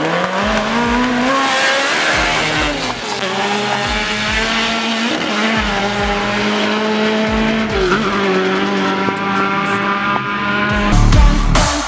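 A car engine accelerating hard through the gears, its pitch climbing and dropping back at each shift. Loud music with heavy bass comes in about a second before the end.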